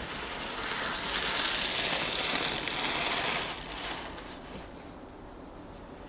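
Minitrains Brigadelok 009 narrow-gauge model locomotive running along the track: its mechanism and wheels grow louder about a second in and then fade away about four seconds in.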